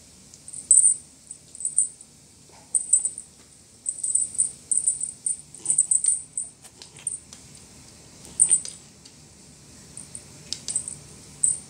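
Feather wand cat toy shaken in irregular bursts, giving a thin, high-pitched rattle, with a few sharp clicks between the bursts.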